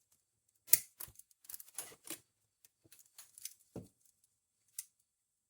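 Stiff 20-gauge galvanized steel wire being handled and worked by hand: a run of sharp clicks and scrapes, the loudest one under a second in, and a dull knock a little before four seconds.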